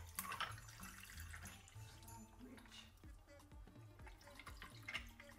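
Sorrel drink poured from a jug over ice cubes in glasses: faint liquid splashing and trickling, with a few brief splashes or ice clinks.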